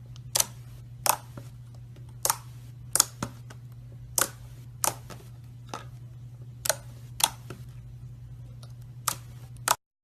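Slime being squeezed and pressed, giving about a dozen sharp pops and clicks at uneven intervals over a steady low hum. The sound cuts off just before the end.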